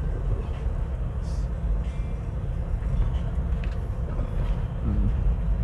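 Vehicle driving up a steep zigzag mountain road: a steady low rumble of engine and road noise.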